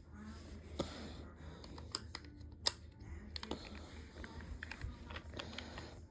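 Handling of a plastic toy walkie-talkie: scattered sharp clicks and knocks of plastic against plastic with some rustling, the loudest click about two and a half seconds in.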